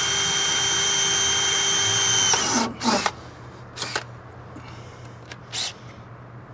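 DeWalt cordless drill running at a steady pitch while it drills a pilot hole up into the travel trailer's frame. The whine stops about two seconds in and is followed by a few short knocks and rattles.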